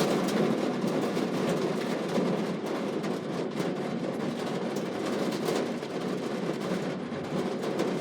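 Heavy rain falling steadily, with scattered sharper drop hits close by.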